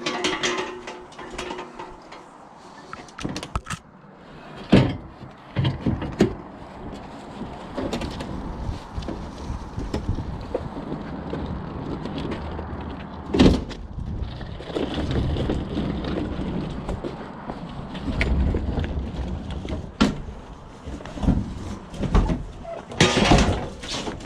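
Knocks, bangs and scraping as a heavy scrap washing machine is moved and loaded, with several sharp thuds spaced a few seconds apart.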